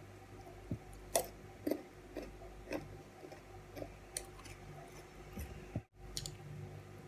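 Raw carrot sticks being chewed close to the microphone: a string of short, crisp crunches at irregular intervals over a faint steady hum.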